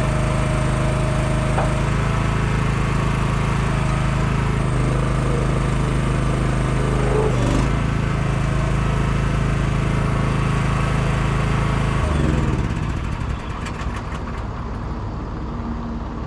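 Semi truck's diesel engine running at a steady speed, then its pitch drops away about twelve seconds in as the revs come down, followed by a run of light clicks.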